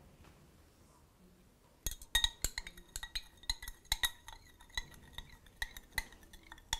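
A stirring rod clinking against the side of a glass lab beaker in quick, uneven taps, each with a short glassy ring, starting about two seconds in: baking soda being stirred into cochineal carmine dye solution.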